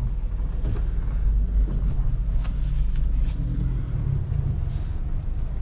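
Car running and tyres rolling over a gravel road, heard from inside the cabin: a steady low rumble, with a few faint ticks.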